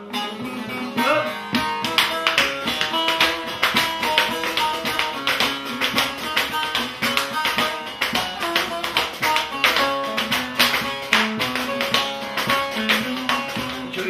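Bağlama (long-necked Turkish saz) played solo: an instrumental interlude of rapid picked notes in a running melody.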